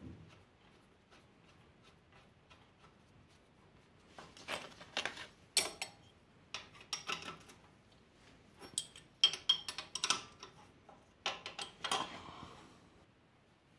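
A metal ring spanner clicking and clinking against a bolt and the surrounding metal on a Yamaha YBR 125 motorcycle engine as the bolt is worked. It starts with faint light ticks, then comes in irregular clusters of sharp clinks through the middle and later part, loudest about nine seconds in.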